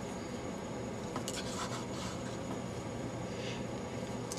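Steady background hiss of room noise, with a few faint light scratches.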